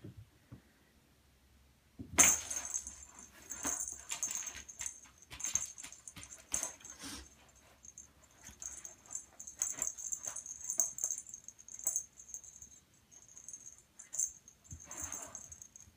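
A kitten playing with a toy on a carpeted floor: irregular clicks and knocks with a high, bright jingling rattle that comes and goes, starting with a sharp click about two seconds in.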